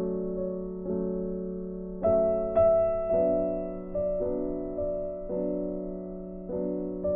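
Background piano music: slow chords, each struck and left to fade, with a new chord about once a second.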